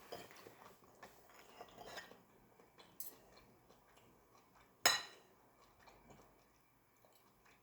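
Quiet eating sounds: eating utensils clicking and tapping against a dish, with a sharper, louder clack about five seconds in.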